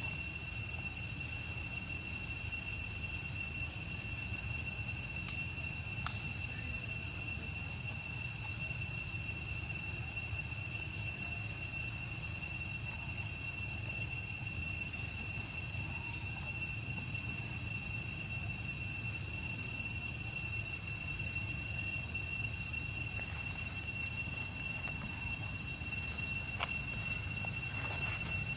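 Steady high-pitched insect drone, one unbroken tone held throughout, over a faint low background rumble.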